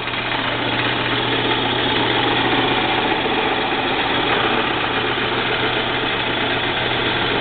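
Small 5" x 6" horizontal metal-cutting bandsaw running steadily, its electric motor humming with the whir of the belt drive and blade, not cutting. It vibrates a little, which is put down to needing a slight adjustment.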